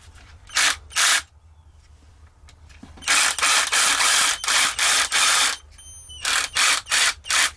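Kimo 6-inch battery-powered mini chainsaw running its chain free in trigger bursts: two short blips, a run of about two and a half seconds, then three more quick blips. The chain has just been re-tensioned.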